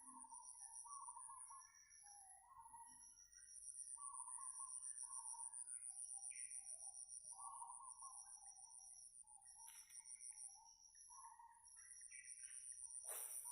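Birds calling with many short chirping notes over a steady, high-pitched pulsing buzz. Two sharp clicks come about ten seconds in and near the end.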